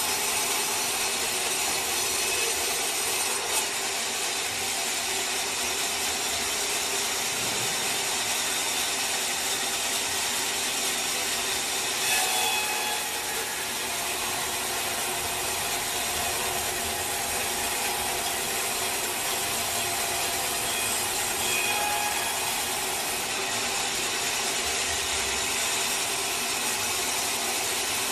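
Sawmill saw cutting through teak wood, a steady, dense sawing noise with brief louder moments about three and twelve seconds in.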